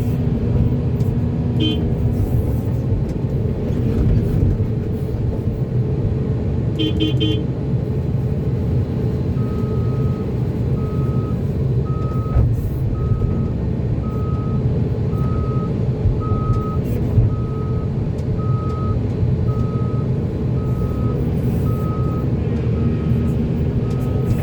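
Heavy diesel machinery running steadily, with two short horn-like toots in the first seconds, the second a quick triple. About ten seconds in a reversing alarm starts beeping, a little faster than once a second, and keeps on.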